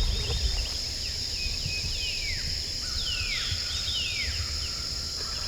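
Woodland ambience: a steady high insect drone, with a songbird's clear down-slurred whistled notes repeated four or five times, over a low rumble.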